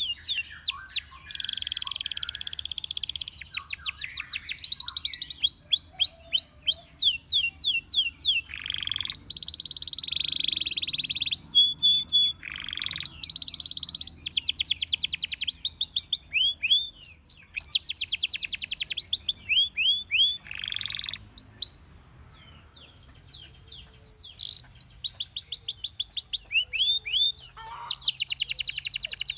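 Canary singing: fast trills and rapid runs of repeated rising notes, broken by longer buzzy rolls, with a short pause about three-quarters of the way through.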